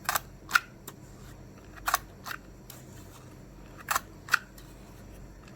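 A handheld paper hole punch clicking as it punches paper three times. Each punch is a pair of sharp clicks, the press and then the lever springing back.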